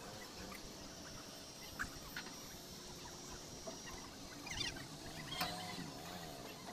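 Background noise on a crowded river ferry deck: a steady low drone with faint distant chatter, and a few brief wavering high-pitched calls about two-thirds of the way through.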